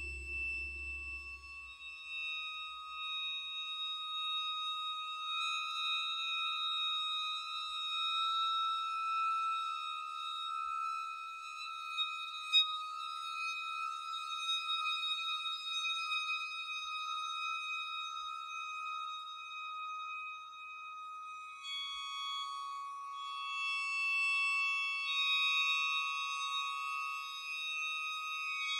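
Electroacoustic music for percussion and electronics: long, sustained high ringing tones that shift step-wise in pitch, stepping up about two seconds in and back down about two thirds of the way through. A low rumble fades out in the first two seconds, and a single sharp click comes near the middle.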